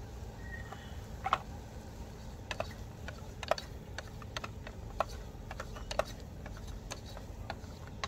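A metal spoon knocking and scraping against a cooking pot while the food is stirred: about a dozen sharp, irregularly spaced clicks over a low steady hum.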